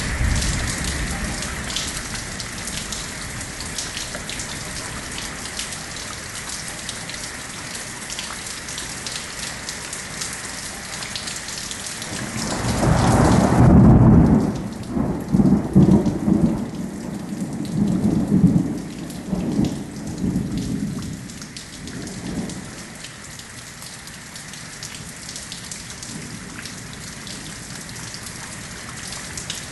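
Steady rain hissing, with fine pattering drops throughout. About twelve seconds in a roll of thunder builds to a loud low rumble, then rolls on in several waves for some ten seconds before dying away; the rain hiss thins out as the thunder peaks.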